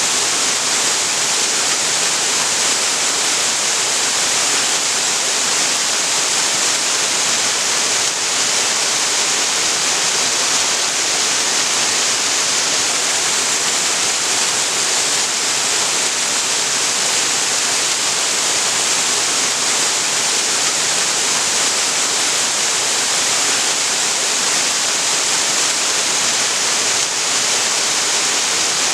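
Waterfall pouring steadily into a creek: a constant, even rush of falling water with a strong hiss.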